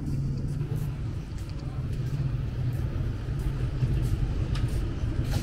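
Small motorcycle engine running as the bike rides slowly up the lane, a low rumble growing gradually louder.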